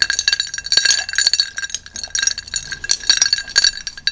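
A long metal spoon stirring a glass of lemon iced tea: rapid, continuous clinking against the glass, with a steady ringing tone.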